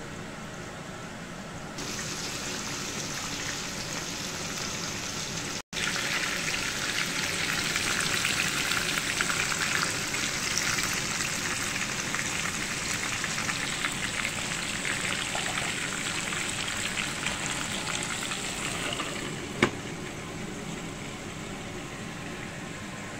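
Chicken leg pieces frying in shallow oil in a pan: a steady sizzle that grows louder after a brief break about six seconds in, with a single sharp click near the end.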